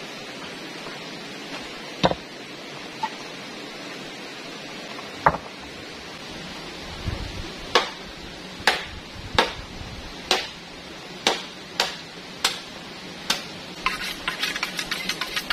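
Machete strokes on green bamboo, each a sharp knock with a short ring. Two single strokes, then a steady run of eight a little under one a second, then a quick patter of light taps near the end. A steady rush of river water runs underneath.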